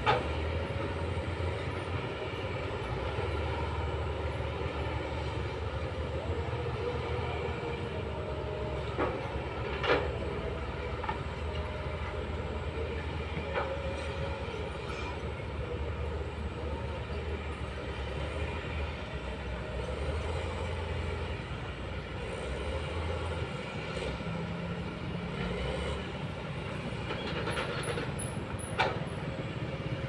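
Distant diesel engines of a Kobelco excavator and a crawler bulldozer at work, a steady low drone. Three sharp metallic clanks stand out: one at the start, one about ten seconds in and one near the end.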